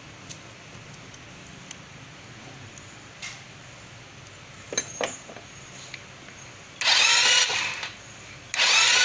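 Handheld power tool run in two short bursts, the second one longer, after a few light clicks of tool handling.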